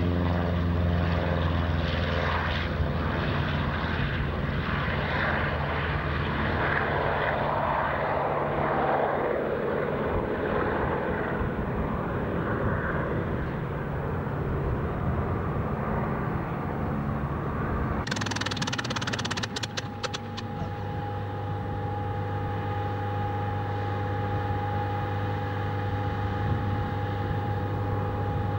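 A P-47 Thunderbolt's Pratt & Whitney R-2800 twin-row radial engine running at full power on its take-off run, then fading as the aircraft climbs away. About two-thirds in, the sound changes abruptly, with a few seconds of crackling, to a steady piston aero-engine idle from the Griffon-engined Spitfire on its ground engine run.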